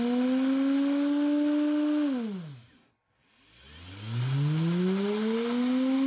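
Whirlpool washing machine's three-phase high-speed induction motor, driven by a variable frequency drive, whining near full speed. Just before halfway it brakes to a stop in about a second, its pitch falling steeply, then it spins back up in reverse with a whine that climbs and levels off near the end.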